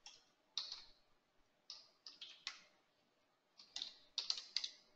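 Keys typed on a computer keyboard, a few short clicks at a time, with a quicker run of keystrokes about four seconds in.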